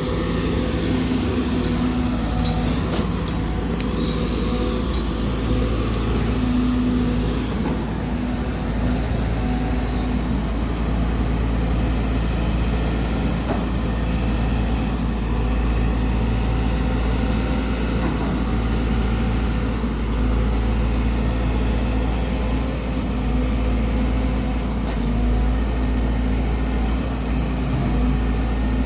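Heavy diesel engine running at a steady speed, with no change in pitch or level.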